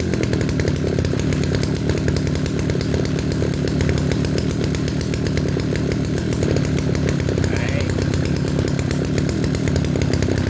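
Kioritz RMB343D brush cutter's 34cc two-stroke engine idling steadily at a slow, even idle.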